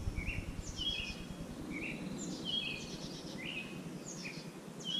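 A small bird calling over and over, short chirps that step down in pitch, repeating about once a second, over a low background rumble that fades away a couple of seconds in.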